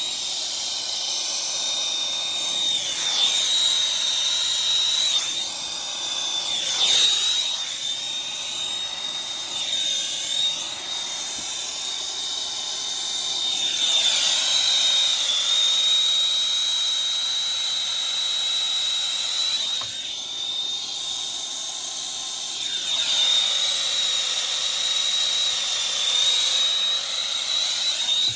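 Air-acetylene torch (Turbo Torch on a B-tank) burning with a steady hiss while it heats a copper fitting for soldering. A thin high whistle holds throughout, and the hiss slowly wavers in tone.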